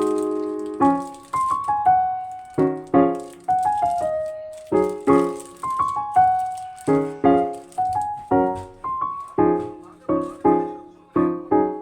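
Background piano music: a light melody of struck notes and chords, a few notes a second.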